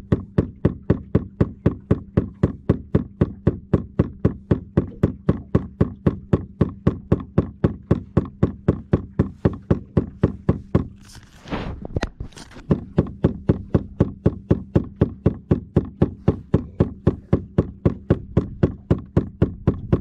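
Steady, rapid mechanical knocking, about four knocks a second, over a low steady hum. It breaks off for about a second around the middle, where a short hiss is heard, then carries on.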